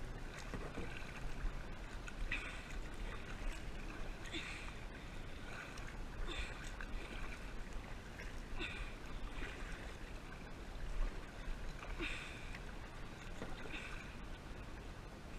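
Kayak paddle strokes splashing into the water, about one every two seconds, over a steady low wind rumble on the microphone.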